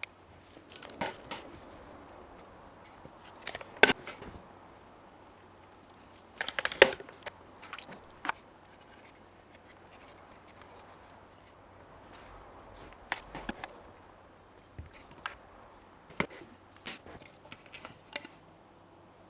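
Hand work on a wooden workpiece at a bench: scattered sharp clicks and knocks of wood being handled and set down, the loudest about four and seven seconds in, with faint rubbing and scraping between them.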